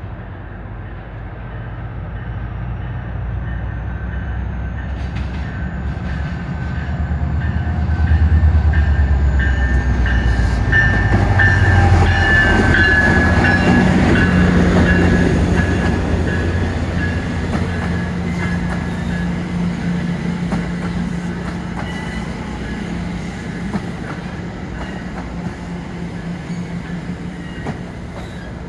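A MARC commuter train hauled by an MP36PH-3C diesel locomotive approaches and rolls past. Its low diesel rumble builds to its loudest about 8 to 15 seconds in, then settles into a steady hum with light wheel clicks as the coaches go by.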